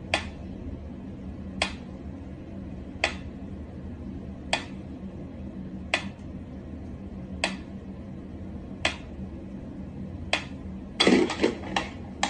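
Sharp taps repeating evenly about every second and a half over a low steady hum, then a quick flurry of several taps near the end.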